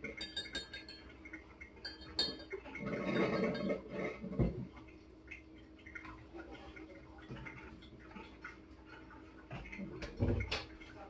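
Tableware being handled on a wooden board: light clinks of a stirring stick in a glass mug and knocks as bottles are lifted and set down, with a heavier thump near the end.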